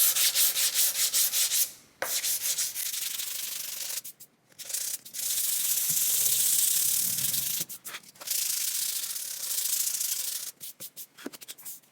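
320-grit sandpaper rubbing over a car's body panel, smoothing out the coarser 180-grit scratches before paint. Quick back-and-forth strokes at first, then longer steady passes broken by short pauses, with a few light clicks near the end.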